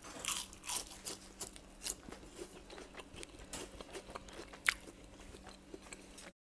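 Crispy deep-fried egg chips (egg chicharon) being bitten and chewed: an irregular run of sharp, dry crunches for about six seconds, the sharpest a little past the middle, cut off abruptly near the end.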